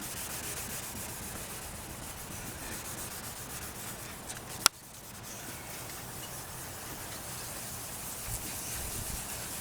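A 1500-grit sanding block rubbed by hand over a plastic headlight lens: a steady, scratchy sanding sound that levels off the lens's degraded clear coat. A single sharp click sounds about halfway through.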